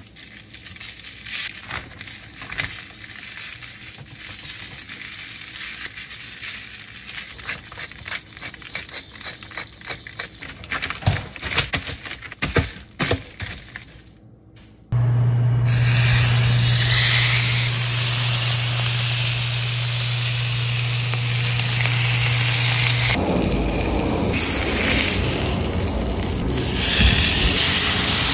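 Crinkling paper and light crackling taps as a raw tomahawk steak is turned and seasoned on a paper sheet. About halfway in it cuts to a loud, steady sizzle of the steak searing in a very hot pan, with a low steady hum under it for several seconds.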